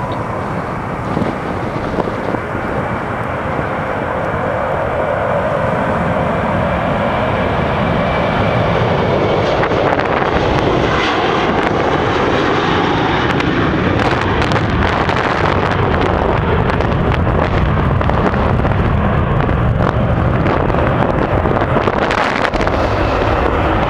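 Boeing 737-800's twin CFM56-7B turbofan engines at takeoff thrust, the roar growing louder as the jet rolls down the runway, then a falling pitch as it passes. Loud, steady jet noise follows as it lifts off and climbs out.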